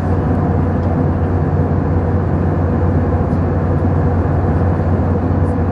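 Steady cabin noise of an Airbus A319 in flight: an even rush of airflow and engine drone, heaviest in the low range, with a faint steady hum.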